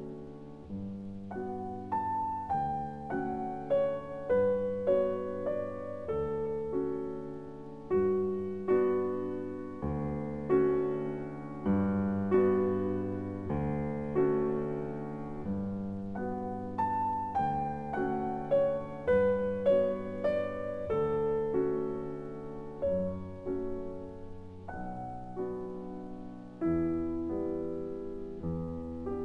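Background piano music: a slow piece of single notes and chords, each struck sharply and then fading.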